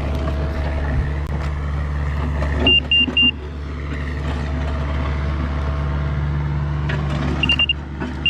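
Diesel engine of the compact earthmoving equipment running steadily, with a laser-level grade receiver giving short high beeps: a quick group of three about three seconds in and another beep near the end, while the grade is being checked.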